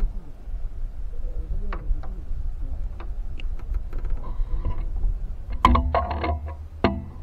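Wind rumbling on the microphone, with scattered light clicks and knocks.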